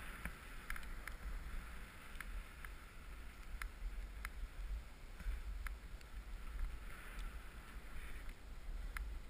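Steady hiss of snow sliding under a board as it is ridden downhill, with a low wind rumble on the camera microphone and occasional faint clicks.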